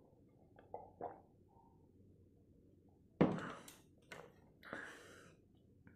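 Faint swallowing clicks while drinking water from a glass. About three seconds in comes a single thunk as the drinking glass is set down on the table, followed by a couple of softer, noisier sounds.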